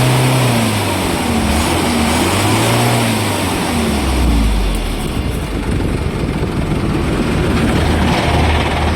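A bus's diesel engine is revved up and down twice. It then drops back and settles into a steady idle.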